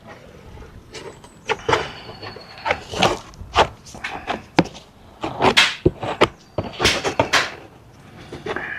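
Plastic spreader scraping and working two-part body filler, mixed with hardener, in short irregular strokes with clicks and scrapes.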